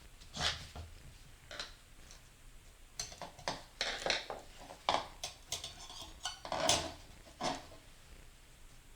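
Metal automatic-transmission parts clinking and clattering as they are handled and set down on a bench. A few clinks come first, then a busier run of clatter from about a third of the way in, with the loudest clank just past the middle.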